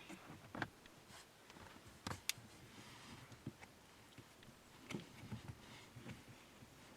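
Faint, scattered clicks and taps of hands working the stock rubber pad off a car's brake pedal, with a few sharper ticks about two seconds in.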